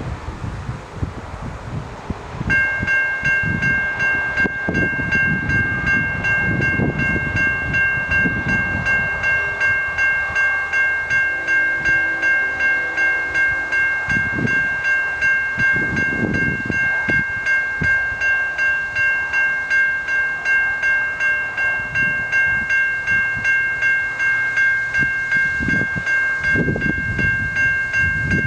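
Railroad crossing warning bell starts ringing a couple of seconds in and keeps ringing in a steady, even pulse: the crossing has been activated by an approaching train. Gusts of wind buffet the microphone underneath.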